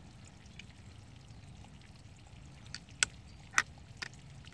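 A handful of sharp little clicks and snaps in the second half from the fiber holder clamps of a Fujikura fusion splicer as a fiber end is set and clamped in the machine, over a low steady background.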